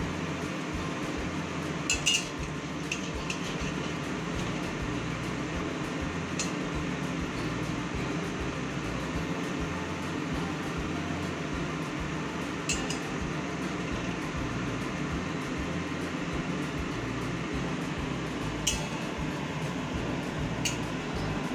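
Steel spatula clinking against a steel kadai about five times, the loudest about two seconds in, as a kachori is pressed and turned in hot oil, over a steady frying hiss.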